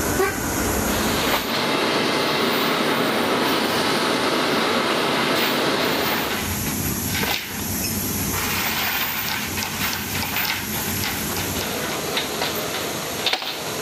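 Steady, fairly loud machinery noise fills the aircraft's cargo hold, and in the last few seconds metal tie-down chains clink and rattle as they are hooked around a vehicle and fastened to the floor.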